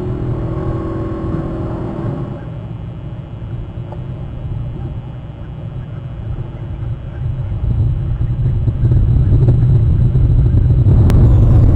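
A low, steady rumble that swells louder over the last few seconds.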